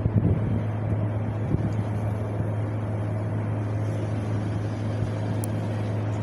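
Wind blowing steadily, with a low rumble from gusts buffeting the microphone.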